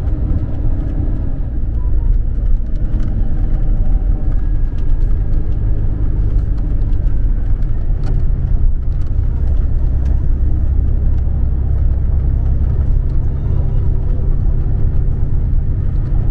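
Inside a Scania Caetano Levante 2 coach on the move: a steady low rumble of engine and road noise.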